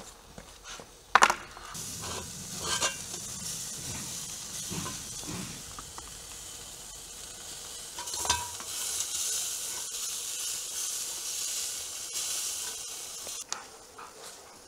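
Meat juices sizzling in a hot tandoor, with sharp metal clanks from the skewer rack and skewers being handled. The loudest clank comes about a second in.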